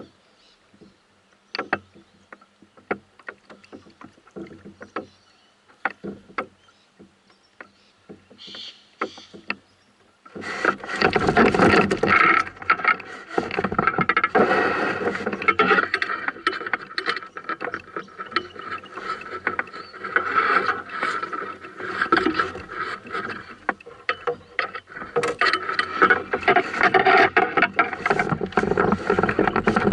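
Scattered light knocks and taps of a small flathead being handled in a canoe. About ten seconds in, a loud, rough, continuous rustling noise starts and carries on.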